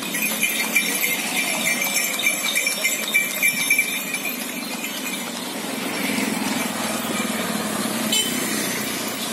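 Horse hooves clip-clopping on an asphalt road as horse-drawn carriages pass, the hoof strikes sharpest in the first few seconds. A motor vehicle's engine swells as it passes, about two-thirds of the way through.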